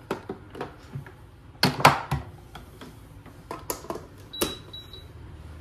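Clicks and knocks of a plug being pushed into a socket and an electric food steamer being handled, then a short high beep from the steamer about four and a half seconds in.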